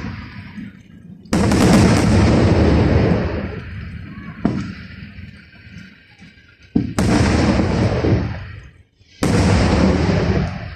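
Aerial firework shells bursting: four loud booms about two to three seconds apart, each rolling away in a long echoing rumble, the second a shorter, sharper crack.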